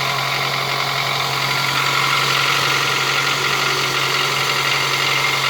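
Toyota 2AZ-FE 2.4-litre inline-four engine idling steadily with a fast, even knock running under its note: the knock the engine is being recorded for.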